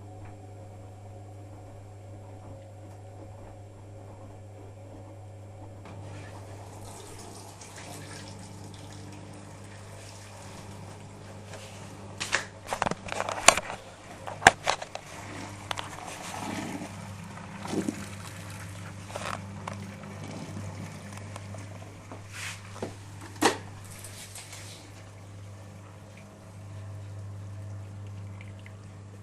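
Privileg Sensation 9415 washing machine running, with water rushing and sloshing over a steady low hum, broken by a cluster of sharp knocks and clunks around the middle.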